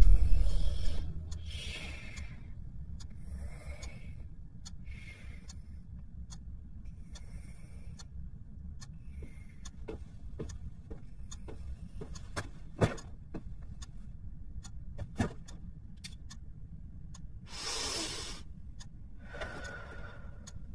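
Quiet room tone: a low steady hum with scattered soft clicks, two of them louder, and a few short soft hissing sounds, the strongest near the end.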